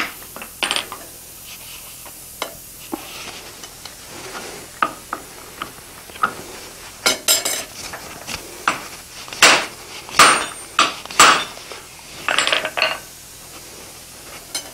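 Irregular clinks and clanks of steel tools against a steel anvil as a hammer and a top tool are handled and set down, with a cluster of louder metal knocks, some briefly ringing, from about the middle to near the end.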